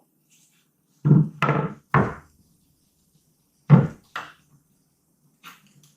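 Several sharp knocks from a tool striking and prying at a pickleball paddle's handle while the glued end cap and foam handle shapers are worked loose. The knocks come at irregular intervals, about a second apart, over a few seconds.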